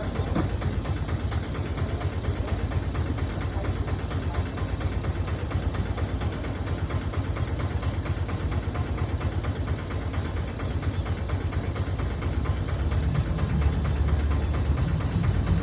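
An engine idling steadily, a low rumble with a fast, even pulse.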